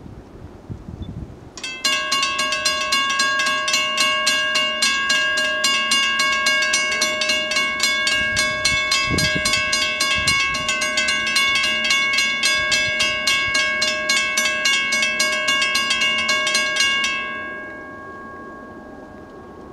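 Railroad grade-crossing bell ringing in quick, even strikes as the crossing gates come down, warning of an approaching train. It starts about two seconds in, stops once the gates are down near the end, and its ringing fades out over about a second.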